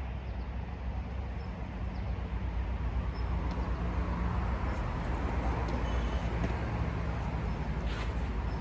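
Steady low rumble of road traffic that swells in the middle and eases off, with a few faint knocks near the end.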